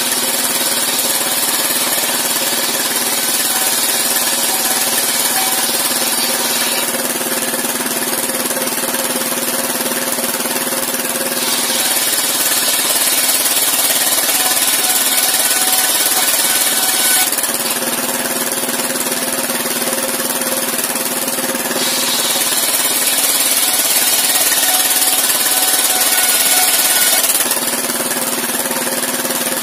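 Engine-driven sawmill circular saw: the engine runs steadily while the blade rips planks lengthwise. The cutting noise swells twice, for about five seconds each time, as boards are fed through.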